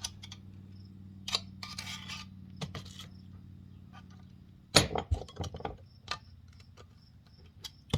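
Hand tools clicking and clinking against the metal parts of a tractor final drive during disassembly, with a louder cluster of clinks about five seconds in, over a steady low hum.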